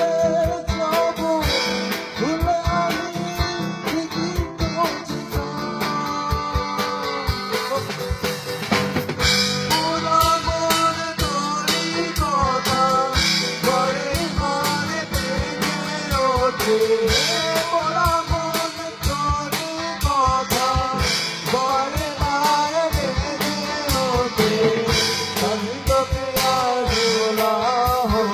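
Live band jam: a drum kit keeps a steady beat under guitar, with a bending melodic lead line carried over the top.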